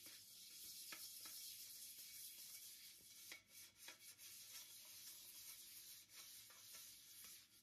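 Dish brush scrubbing a non-stick frying pan: a faint, steady scratchy hiss of bristles rubbing the pan's surface, with a few light knocks.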